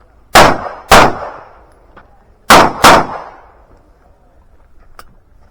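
Four pistol shots fired in two quick pairs about two seconds apart, each shot trailing off in a short echo.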